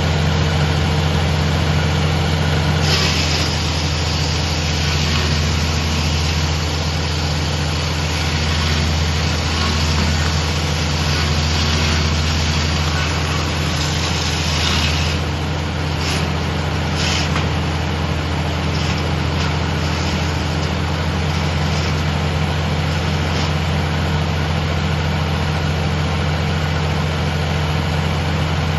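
Sawmill engine running steadily with a low hum. A higher hissing sound joins it from about three seconds in until about fifteen seconds, then comes back in a few short bursts.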